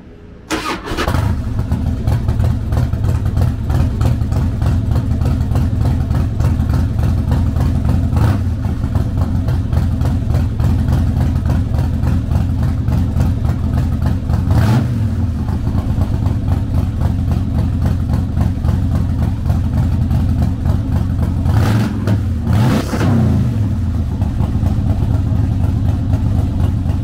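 A 2005 Harley-Davidson Night Train's 88-cubic-inch V-twin, fitted with an aftermarket exhaust, is started with the electric starter and catches about half a second in. It then idles steadily, with a short throttle blip near the middle and two more near the end.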